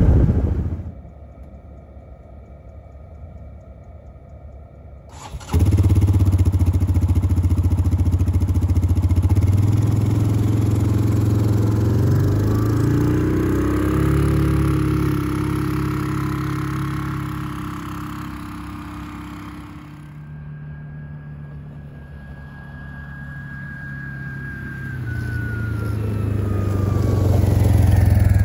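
Side-by-side UTV engine running under way, its pitch and loudness rising and falling with the throttle. It cuts in suddenly about five seconds in after a quieter stretch, eases off around two-thirds of the way through, and builds again near the end.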